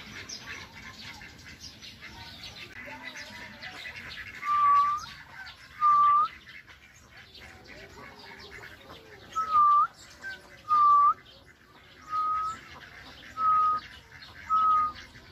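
Seven short, clear whistled notes on nearly the same pitch, each with a slight upward flick, repeated every second or so from a few seconds in. They sound over a steady background of many small birds chirping.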